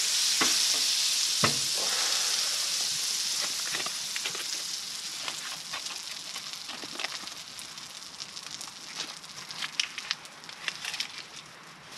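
Butter sizzling in a hot frying pan. The hiss fades steadily as the butter melts down, with scattered sharp crackles standing out near the end.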